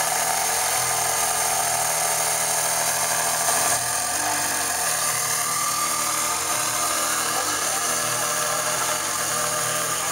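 Ferrari Enzo's 6.0-litre V12 idling steadily just after start-up, a high-pitched, even exhaust note from the quad tailpipes, dipping slightly about four seconds in.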